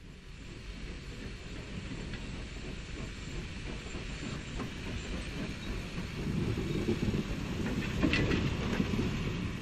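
The 1892-built rack steam locomotive 97.208 with a short train of ore and goods wagons passing close, growing louder as it nears. Steam escapes from the engine, and from about six seconds in the wagon wheels clatter over the rail joints, busiest near the end.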